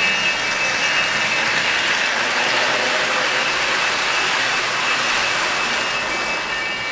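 Lionel O-gauge Santa Fe Super Chief passenger train running past on three-rail track: a steady rolling rush of metal wheels on the rails.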